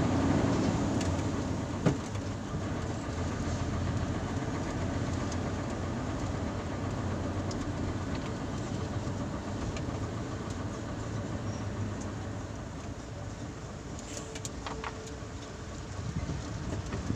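Truck engine running steadily at low speed, heard from inside the cab as the truck rolls through a slow turn, with a single sharp click about two seconds in.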